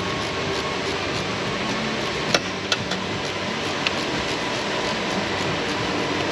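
Steady rushing background noise, like a shop ventilation fan, with a few light sharp clicks, about two and a half, three and four seconds in, from a spark plug being threaded by hand into a V8's spark plug tube.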